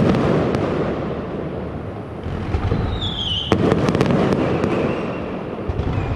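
Aerial fireworks shells bursting, with low rumbling booms throughout. About three seconds in, a whistle falls in pitch and is followed by a quick run of sharp bangs.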